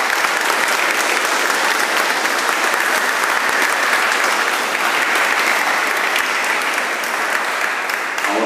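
Crowd applauding: steady, dense clapping from many hands.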